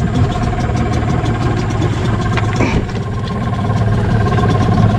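Small boat engine running steadily.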